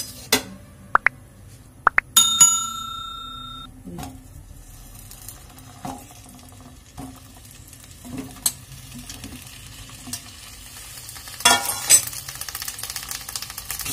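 Two clicks and a ringing bell chime from a like-and-subscribe animation. About eleven seconds in, cut pointed gourd (parval) goes into hot oil in a nonstick pan, and the oil starts to sizzle.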